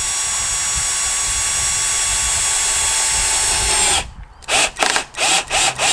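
Cordless drill driving screws on low speed, running steadily for about four seconds with its pitch sagging slightly before it cuts off. It is followed by a quick series of short trigger blips as the screw is seated.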